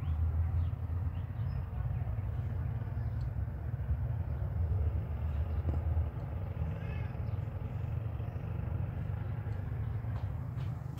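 Outdoor ambience heard through an opening in a thick wall: a steady low rumble with a light hiss, and a faint brief pitched call about seven seconds in.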